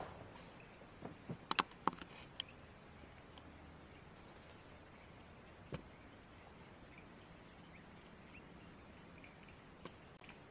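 Insects trilling steadily in a high, even buzz, with a few light clicks and knocks in the first two seconds and once near six seconds in.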